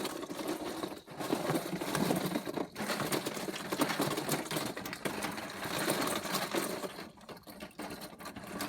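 Rapid, continuous clattering and rattling of small hard objects being handled and shifted, such as leftover vending-machine candy, toys or coins.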